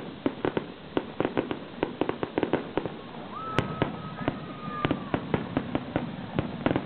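Aerial fireworks display: a rapid, irregular run of shell bursts, several bangs a second. Partway through, a steady high whistle holds for about a second and a half.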